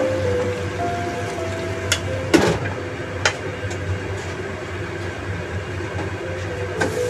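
Soft background music with held notes over a steady low hum, broken by a few sharp clicks, the loudest about two and a half seconds in.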